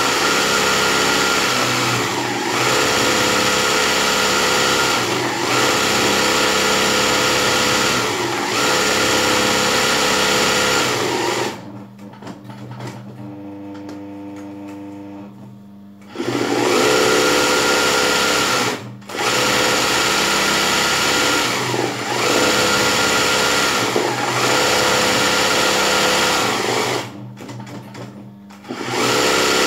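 Sewing machine stitching embroidery in runs of a few seconds, stopping briefly between them, with a longer quieter pause around the middle and another shortly before the end.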